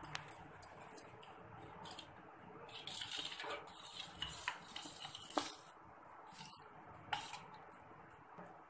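Steel spoon stirring thin syrup in a stainless steel pot, faint liquid swishing with a few light, irregular clinks of the spoon against the pot.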